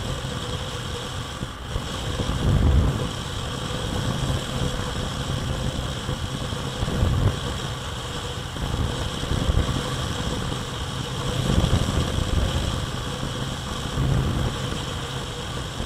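Motorstar Easyride 150N motorcycle running at a steady highway cruise of about 100 km/h, its engine drone under heavy wind buffeting on the microphone that surges every second or two.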